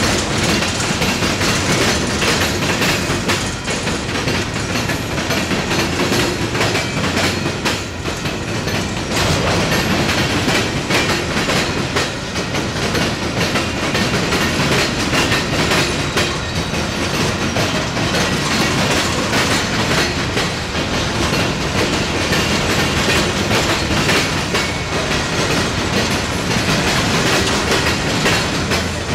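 Empty coke hopper cars rolling past, their steel wheels clattering steadily over the rail diamond crossings in a continuous clickety-clack.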